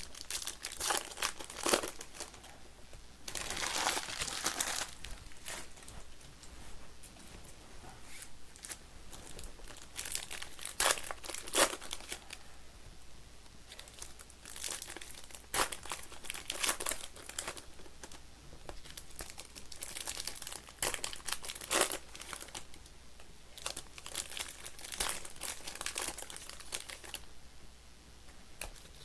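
Foil trading card packs being torn open and crinkled, with cards slid and handled between bursts of rustling.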